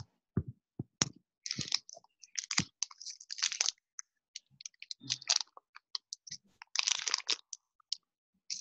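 Irregular clicks and short crackling, rustling noises picked up by an open microphone on a video call, scattered unevenly with no steady rhythm.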